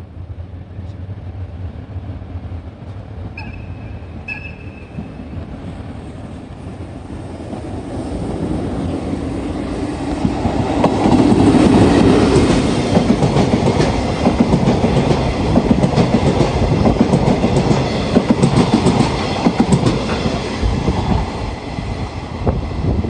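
Freight train passing through a station: two short horn toots about a second apart a few seconds in, then the train draws near and goes by, loudest around the middle, with wheels clattering over rail joints as the wagons pass.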